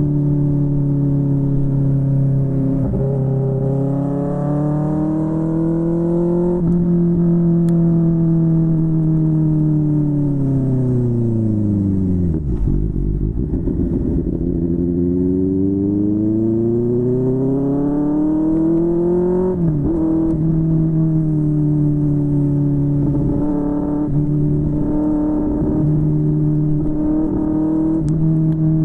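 QJMotor SRK600's inline-four engine through a Yoshimura R11 exhaust under way. The revs hold steady, fall away slowly to a low point near the middle, then climb again before dropping sharply with a gear change, and settle back to a steady pitch.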